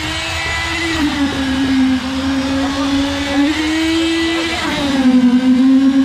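Concrete needle vibrator running, its poker worked down into freshly poured slab concrete between the rebar. The motor gives a steady whine whose pitch dips and recovers twice as the load changes.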